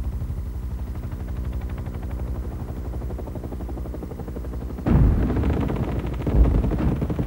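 Helicopter rotors beating steadily and rapidly. About five seconds in, loud gunfire and blasts break in, with another heavy thump a moment later.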